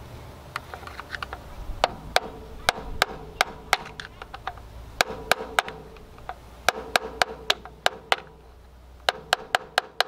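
A hammer tapping a screwdriver set against the retaining ring of a Ford 1910 tractor's fuel filter bowl, tightening the ring down. Sharp taps come about three a second in short runs with brief pauses, each with a short metallic ring.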